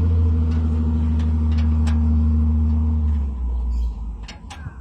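A machine running with a steady low hum that drops off about three seconds in, leaving a rougher low rumble and a few clicks.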